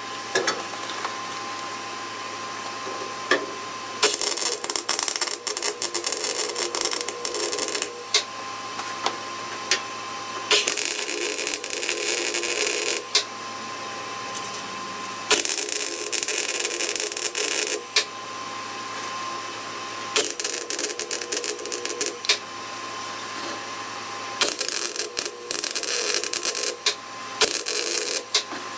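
MIG welder laying short welds on auto body sheet metal, about five bursts of crackling, sizzling arc noise a few seconds each, starting and stopping abruptly, with quieter pauses between; these are the follow-up passes filling in the tack-welded inner rocker seams.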